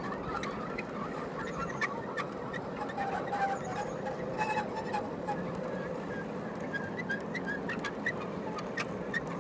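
G scale covered hopper cars rolling past on garden railway track: a steady rumble of wheels on the rails, broken by scattered sharp clicks.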